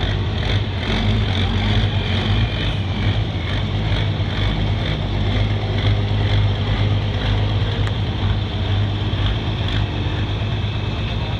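Turbocharged diesel engine of a hot farm pulling tractor idling steadily with a deep, even hum.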